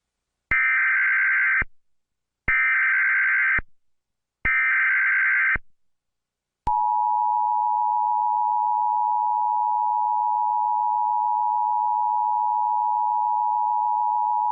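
Emergency Alert System tornado-warning header: three short buzzy SAME data bursts about two seconds apart, then, about two-thirds of the way in, the steady two-tone EAS attention signal begins and holds. The data bursts carry the coded tornado warning and the two-tone signal calls attention to the spoken alert that follows.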